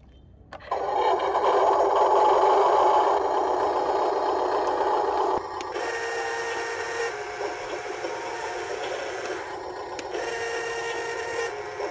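Huina 1573 radio-controlled dump truck running: a loud steady mechanical noise for the first few seconds, then a quieter whir as its electric tipping ram lifts the metal dump bed.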